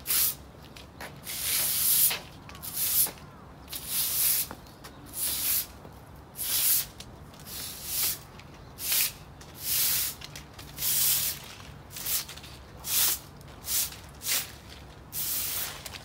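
A long-handled broom sweeping a concrete patio: scratchy, hissing swishes, one stroke about every second.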